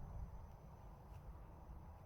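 Faint room noise: a low rumble with a thin, steady high whine and no distinct events.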